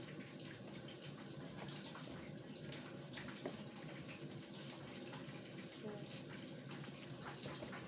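Steady hiss of running water, with a few faint clicks and knocks.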